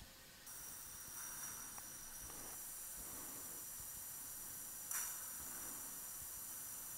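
Faint steady hiss, with a brief louder burst about five seconds in.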